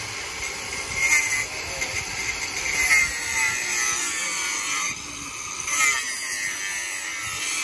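Metal lathe machining a steel truck hub: a steady high hiss of cutting with louder, harsher screeching bursts about a second in, near three seconds and again near six seconds.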